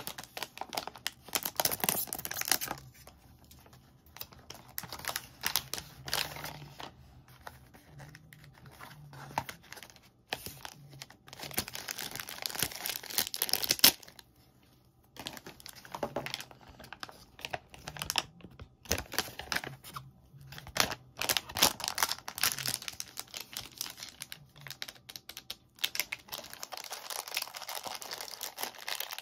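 Printed plastic blind bag torn open by hand and crinkled, in bursts with short pauses and a sudden stop about halfway through. Near the end a small clear plastic inner bag crinkles as it is handled.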